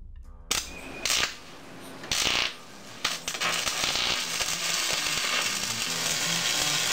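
Logo-reveal sound effects: three short crackling, sparking bursts within the first two and a half seconds, then a steady fizzing hiss like a burning sparkler, with low tones underneath.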